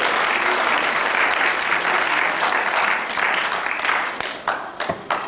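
Audience applauding, thinning out near the end into a few scattered claps.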